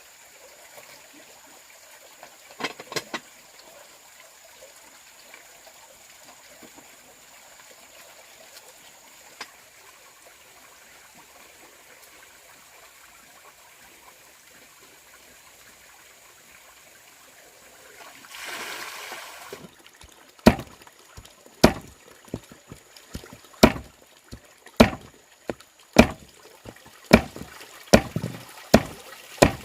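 Faint steady hiss, then about two-thirds of the way in a run of sharp strikes on wood, about one loud strike a second with lighter taps between, as in hand-tool work on timber.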